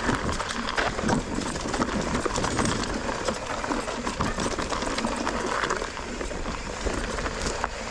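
Mountain bike riding over a rough, rocky trail: tyres crunching and the bike rattling, with many irregular knocks.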